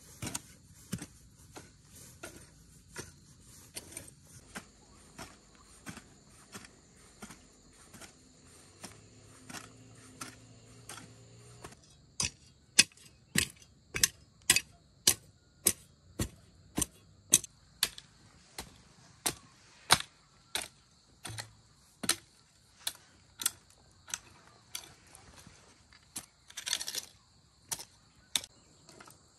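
Regular sharp strikes, about three every two seconds, becoming much louder about twelve seconds in, over a steady high drone of crickets.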